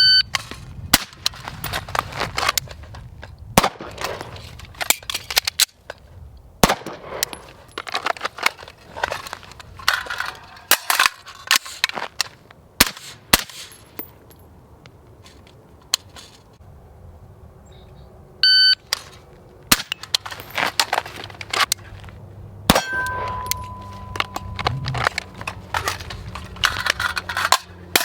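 Irregular gunfire at a shooting range: many single shots and short strings spread throughout, some followed by the ring of steel targets. Two short electronic beeps sound, one at the very start and one about two-thirds of the way in.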